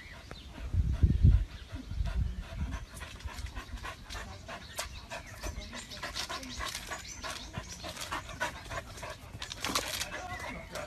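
A dog panting hard, with a burst of low rumble about a second in.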